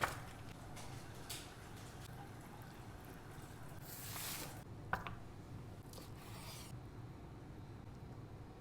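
Faint kitchen handling sounds: a sharp click at the start, a softer tick a second later, a brief hiss about four seconds in and another sharp click just after it.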